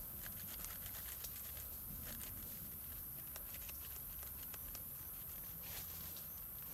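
Faint, scattered crackles and small ticks of dry leaf litter, over a steady low rumble.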